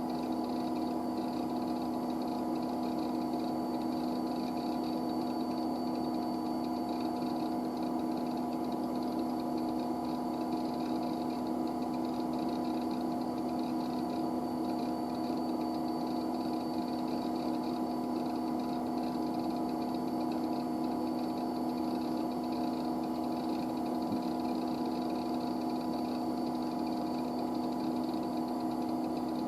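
IBM 9535 running: a steady mechanical hum made of several constant tones, with a faint high whine over a noisy hiss.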